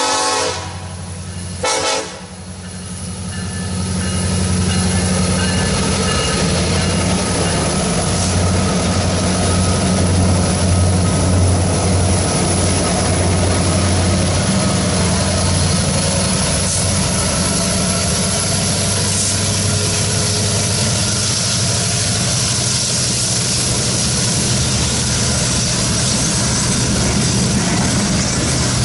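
New EMD SD70ACe diesel-electric locomotives, two-stroke V16 engines, working at high throttle as they pass pulling a loaded hopper train. The sound is a steady deep engine drone over the rumble of steel wheels on rail. A horn blast ends at the very start, and a short final toot comes about two seconds in.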